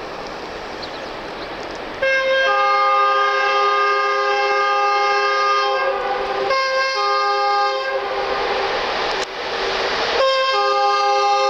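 Two-note air horn of a Romanian CFR EA1 class electric locomotive blown three times: a long blast, a shorter one, then a third. In each blast the second, lower note comes in about half a second after the first. A rushing noise fills the gaps.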